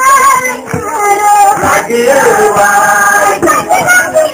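Singing of a Gurezi wedding song, the voice holding long drawn-out notes.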